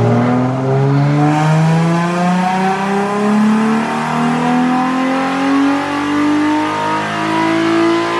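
Nissan 350Z's 3.5-litre V6 running at full throttle on a chassis dyno, its revs climbing steadily through a single loud pull.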